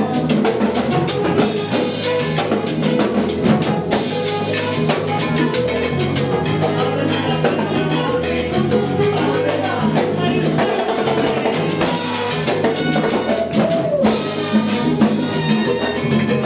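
Salsa music played by a Latin orchestra, with drum kit and percussion keeping a steady beat under the band.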